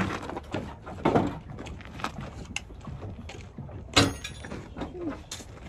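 Irregular metal clanks and knocks from a junked 2005 Chevy Trailblazer wobbling on its makeshift wheel-and-rim supports. The loudest is a ringing metal clang about four seconds in.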